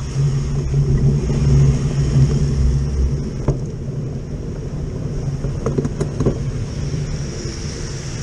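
Motor vehicle engine running close by, a low steady drone that is loudest for the first three seconds and then eases, over the hiss of tyres on a wet road, with a few light knocks.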